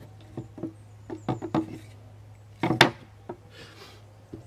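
Light wooden knocks and taps as a wooden beehive brood frame, top bar with the side bars pushed in, is handled and squared up on a wooden table top, with a louder pair of knocks a little under three seconds in.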